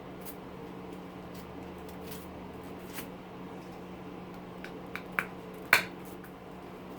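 Hand tools snipping and pulling at the copper windings of an electric motor being stripped for scrap: scattered small clicks and one sharp snap near the end, over a steady low hum.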